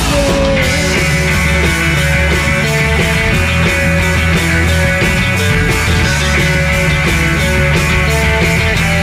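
Indie pop band playing live: electric guitars, bass and drums with a steady beat, under a lead melody that moves in short stepped notes.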